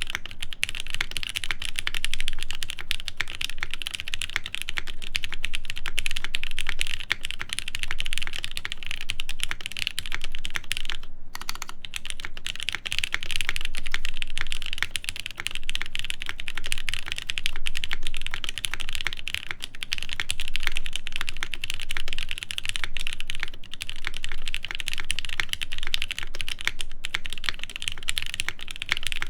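Continuous fast typing on a Cloudline prototype top-mount mechanical keyboard with lubed Gateron Ink switches, an aluminum half plate and GMK keycaps: a dense stream of key clacks, with a brief pause about eleven seconds in.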